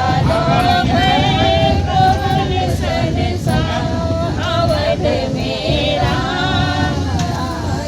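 A group of women singing a devotional bhajan to Ram together, in a wavering melody, over the steady low rumble of a moving train.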